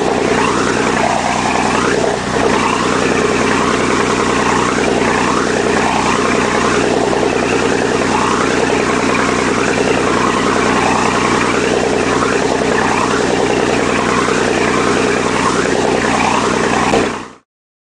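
Boat engine running steadily with a hum of low tones under the rushing hiss of churned water in the wake. It cuts off abruptly near the end.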